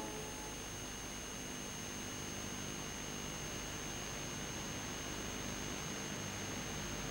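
Steady background hiss with a thin high-pitched whine and a low hum: the bare noise of the soundtrack once the music has ended, with no other sound.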